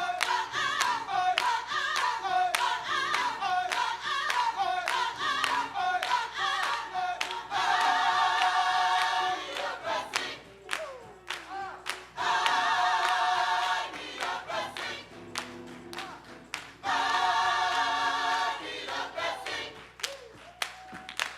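Gospel choir singing to steady hand clapping, the voices breaking three times into long held chords.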